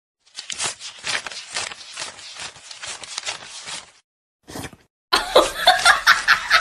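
A stack of paper banknotes being riffled and counted by hand, the notes flicking past the thumb in quick papery snaps. It stops for about a second, then resumes louder and faster about five seconds in.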